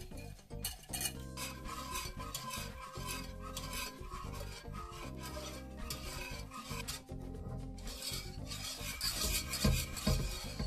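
Wire whisk stirring custard in a saucepan as it thickens: a repeated scratchy swishing of metal wires against the pan, over quiet background music.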